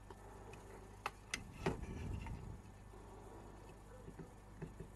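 Faint clicks of multimeter test probe tips touching down on parts of a welding inverter's circuit board, a few sharp ones between about one and two seconds in, with a little handling rumble, over a low steady hum.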